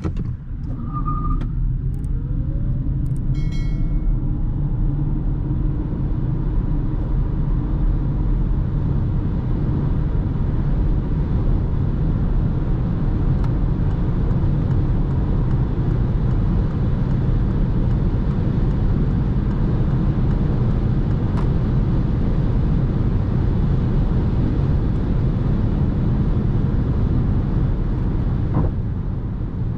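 Inside the cabin of a 2020 Peugeot e-208 electric car accelerating at motorway speed: a faint rising electric-motor whine in the first few seconds, then loud steady road and wind noise that builds and fades near the end. Two short electronic beeps sound in the first few seconds.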